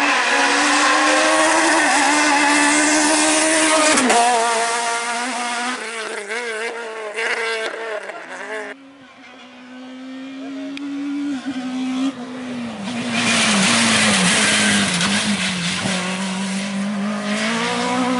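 Rally cars' engines running hard at high revs. The note drops about four seconds in and then wavers as the throttle comes on and off. Near the middle it cuts off suddenly, and another car's engine builds up, loudest in the last few seconds.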